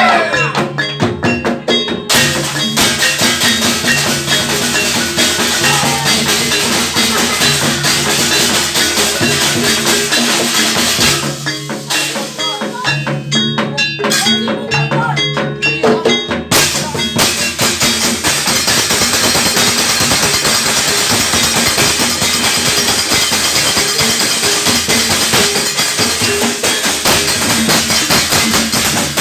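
Gamelan ensemble playing jaranan music: drums and struck pitched metal instruments in a dense, continuous rhythm, with the texture thinning briefly near the middle.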